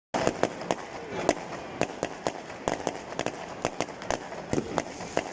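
Fireworks and firecrackers going off all around: a continuous crackle with sharp bangs every half second or so.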